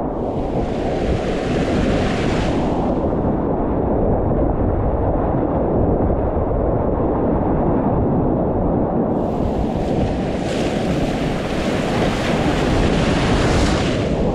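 Whitewater rapids rushing, with a heavy rumble of wind and water on the microphone. The hiss of the white water comes up strongly for the first few seconds and again from about nine seconds in.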